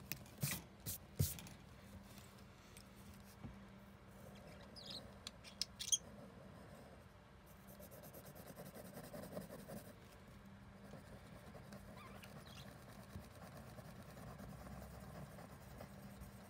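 Black pen scratching on paper, faint, with a few sharp clicks in the first couple of seconds and again near six seconds, then steady back-and-forth scribbling as an area of the drawing is shaded in.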